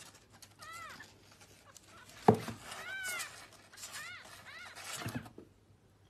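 A newborn kitten mewing: about five short, thin cries, each rising and falling in pitch, with a single sharp knock about two seconds in.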